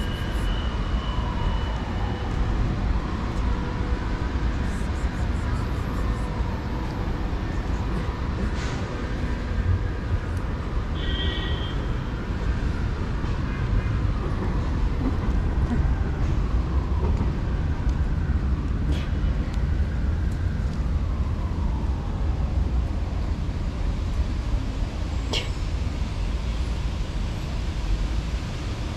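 Steady low rumble of street traffic, with faint tones rising and falling every few seconds and a few sharp clicks.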